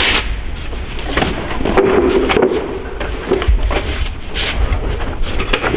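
Wooden furniture panels knocking and scraping as they are handled and loaded into a car, with irregular knocks and clicks.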